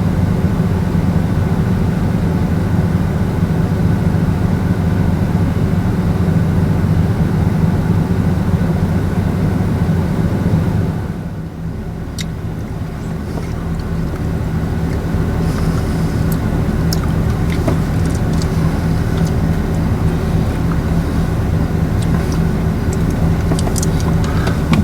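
Car driving: steady engine and road noise. The sound shifts and drops a little about eleven seconds in, and after that there are scattered sharp ticks.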